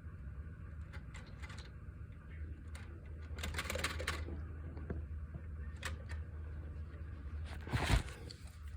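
Manual typewriter's typebars and metal mechanism being worked by hand to free a stuck key: scattered metallic clicks, with a longer clatter about three and a half seconds in and a louder one near the end.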